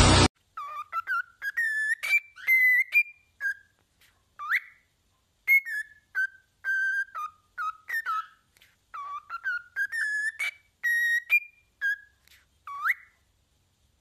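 Cockatiel whistling: a long run of short, clear whistled notes at about the same pitch, with brief gaps between them. A couple of notes, about four and a half seconds in and near the end, slide sharply upward.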